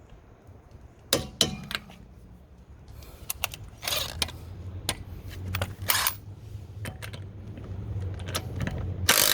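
Scattered clicks and ratchet-like rattles of tools on a wheel, then near the end a Metabo HPT 18V impact driver on a multi-volt battery starts hammering loudly, working a lug nut torqued to 175 ft-lb loose.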